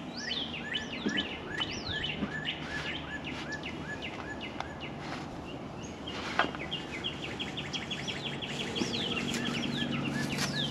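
Songbirds singing, with repeated downslurred whistles and a fast trill about six seconds in.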